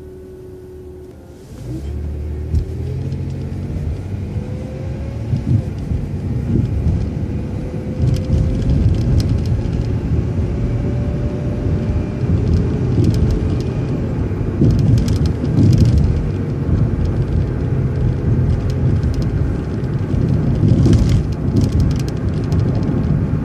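Road vehicle pulling away from a brief stop. Low rumble rises sharply about a second and a half in, and a faint whine climbs slowly in pitch over the next ten seconds. The rumble then carries on steadily as it drives.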